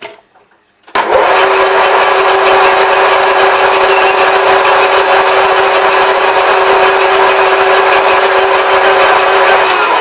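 IT-1M lathe switched on and running steadily under power, with a steady tone over a dense noisy whir, while the end of the freshly parted-off part is faced. It is switched off near the end and its pitch falls as the spindle winds down.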